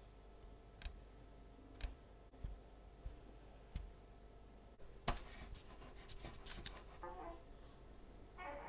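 Quiet handwork at a table while shaping flour-and-water dough figurines: a few light, scattered clicks and taps, then from about halfway a denser run of scratchy, crackly clicks and rasps.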